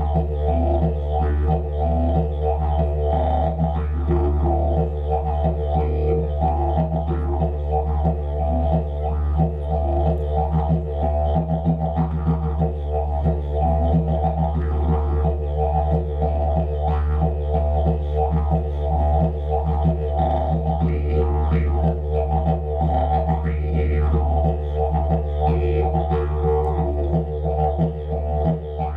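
Didgeridoo played as a continuous low drone, with rhythmic pulses and overtone accents worked into the drone.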